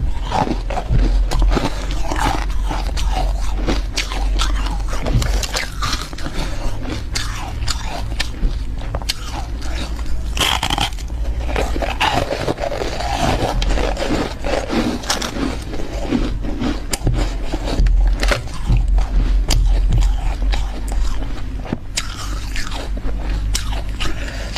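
Refrozen freezer frost being bitten and chewed close to the microphone: dense, irregular icy crunches, one after another, over a faint low hum.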